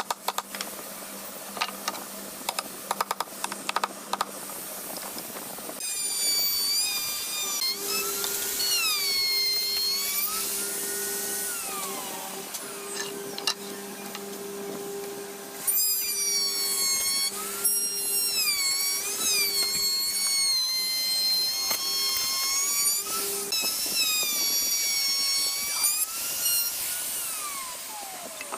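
Electric drill running in long bursts, its motor whine rising and falling in pitch as the trigger and load change. Before it starts, about four seconds of light, irregular tapping knocks.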